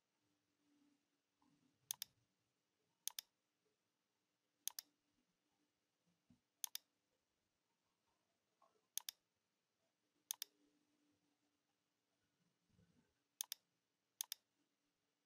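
Computer mouse button clicking about eight times at irregular intervals, each click a sharp double tick of press and release, over near silence.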